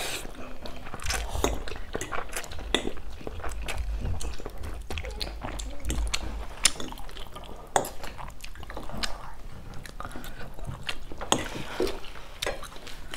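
Close-miked eating sounds: spaghetti being slurped and chewed, with a steady run of short, wet mouth clicks and smacks.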